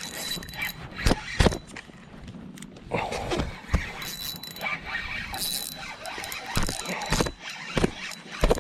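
A fishing reel being worked against a hooked catfish, its drag giving line and squealing with a ratchet-like clicking, mixed with repeated sharp knocks.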